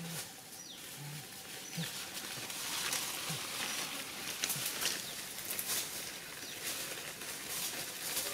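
Dry leaves and brush rustling and crackling as a person walks and crouches in them. In the first few seconds there are a few short, low grunt-like sounds.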